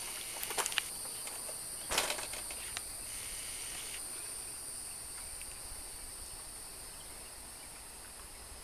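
Steady high-pitched chorus of night insects chirring, with a few light clicks and a knock from handling about two seconds in.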